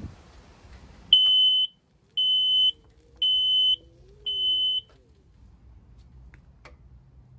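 Mobility scooter's electronic buzzer giving four high-pitched beeps, each about half a second long, about one a second. It is the warning beep that had been missing, now sounding with power reaching the motor through the control module.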